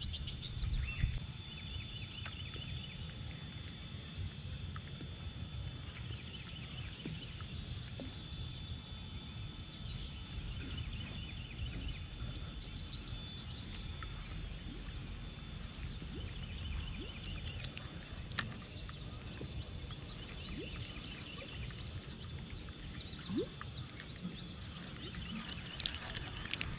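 Outdoor pond-side ambience: small birds chirping and calling again and again over a steady low rumble. A thin, steady high tone runs beneath, and there is a single sharp click about eighteen seconds in.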